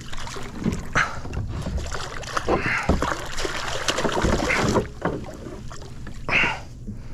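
A bluefish thrashing at the surface beside a kayak as it is drawn in on the line, making irregular splashes of water.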